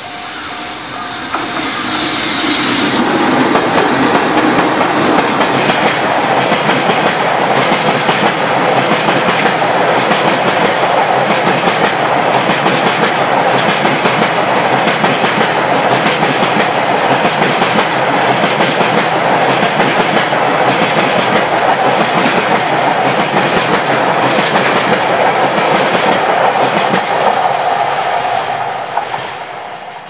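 Freight train of tank wagons passing close by: the wheels clatter steadily over the rail joints, building up over the first few seconds and fading in the last two. The level crossing's warning bell rings on under the train noise, clearest near the end.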